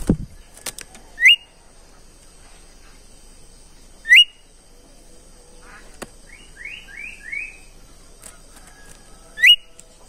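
Caged bimoli bird calling: three loud, quick rising whistles spaced a few seconds apart, with a short run of three falling notes between the second and third. A soft thump right at the start as the bird hops on its perch.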